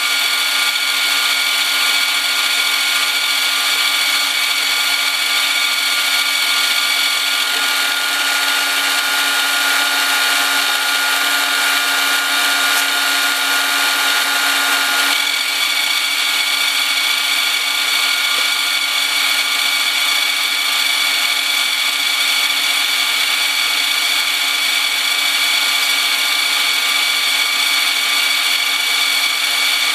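Milling machine running steadily while its cutter takes a pass along the side of a stainless steel block, a continuous whine of several high steady tones; the tone shifts slightly about halfway through.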